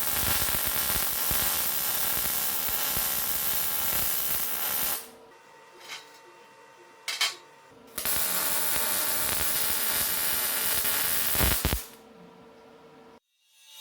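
Two long bursts of steady, harsh hissing from a metalworking tool on steel, the first about five seconds and the second about four, with two brief bursts in the quieter gap between.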